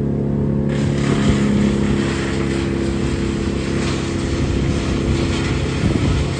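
A small engine running steadily, its drone shifting near the end, with a hiss over it.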